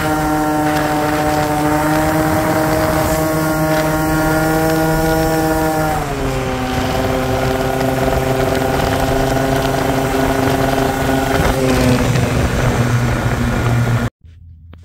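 Tuned 70cc Minarelli LC two-stroke engine of a Yamaha Aerox scooter, with a Metrakit cylinder and Jollymoto Evolution exhaust, running at steady high revs (about 9,400 rpm) while riding, with wind noise on the microphone. The pitch drops slightly about six seconds in and then holds, and the sound cuts off abruptly near the end.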